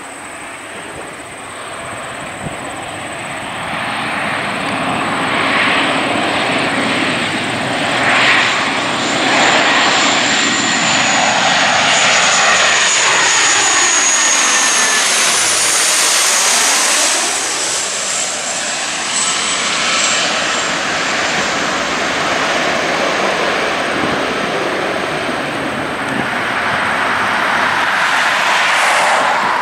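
Lockheed Martin C-130J Hercules with four turboprop engines and six-bladed propellers on a low landing approach. Its drone grows louder as it comes in, peaks as it passes overhead about halfway through with a high whine falling in pitch, and swells again near the end as it rolls out on the runway.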